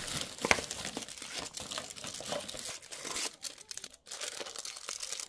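Aluminium foil wrapper crinkling and tearing as a chocolate bar is unwrapped by hand, an irregular run of small crackles with a brief lull near the end.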